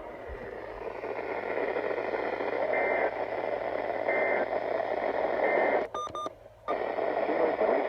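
Weather radio receiver giving out dense static hiss over a low hum, with three short high beeps about a second and a half apart. About six seconds in, the signal briefly drops out with a few clipped tones, then the hiss returns.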